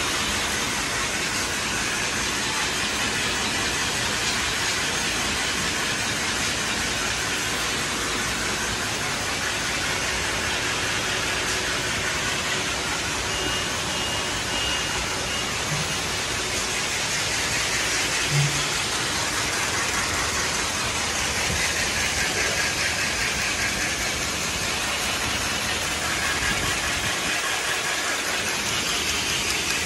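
Folder-gluer machine running: steady, even mechanical noise from its belts and rollers carrying cardboard blanks, with two brief low thumps about midway.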